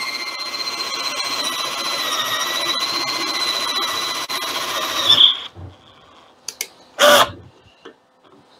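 Cordless drill running steadily with a whine as a 0.265-inch tap drill for an M8×1.25 thread bores through the end of a mini lathe bed; it stops about five seconds in. After a few faint clicks comes one brief loud clunk.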